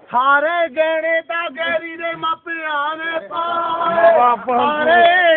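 A man singing in Punjabi, phrase after phrase with brief breaks, some notes held long and wavering.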